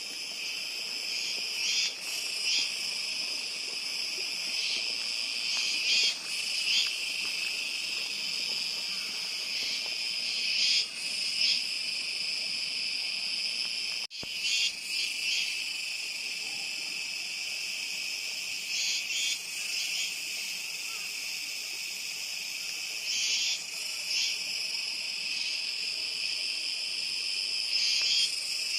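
Chorus of cicadas buzzing steadily at a high pitch, with frequent brief louder swells from individual callers.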